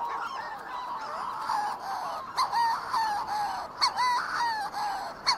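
Chorus of Manx shearwaters calling from their colony: a strange cacophony of many overlapping crowing calls that swoop up and down in pitch, one after another.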